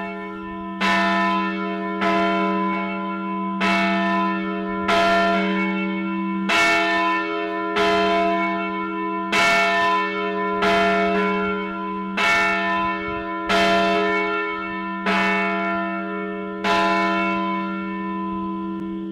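Church bells ringing: an even stroke a little more than once a second, each stroke ringing on and overlapping the next.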